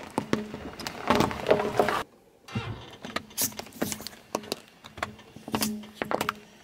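A car tyre rolling slowly over coloured sticks, crackling and crunching as they break under it. After a short break, the tyre crushes plastic Play-Doh tubs, with sharp cracks and crunches as the plastic splits and flattens.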